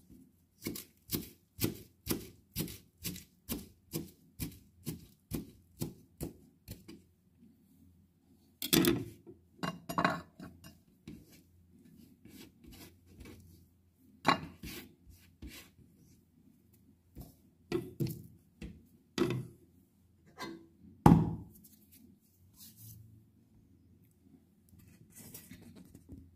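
Kitchen knife chopping celery leaves: a quick, even run of cuts, about three a second, for the first seven seconds or so. Then come scattered louder knocks and rubbing, the loudest about 21 seconds in.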